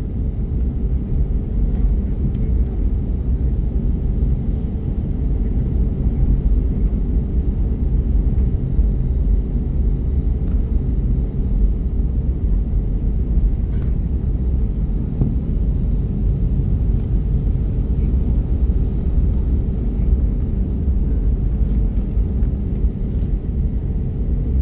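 Cabin noise of an Airbus A321neo taxiing, heard from a window seat beside the wing: a steady low rumble of its CFM LEAP-1A engines running at low power, with a faint steady hum above it.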